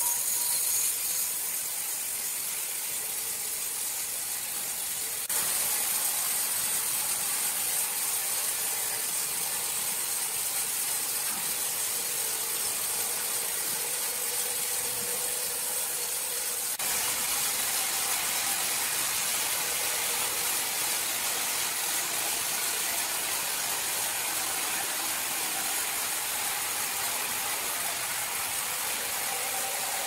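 Horizontal band sawmill running, its thin steel band blade cutting lengthwise through a squared hardwood beam: a steady, hissing saw noise over the hum of the drive motors. The sound steps abruptly louder about five seconds in and shifts again around seventeen seconds.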